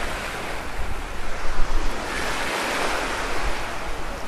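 Wind rushing past the microphone, with uneven low buffeting and a hiss that swells about two seconds in.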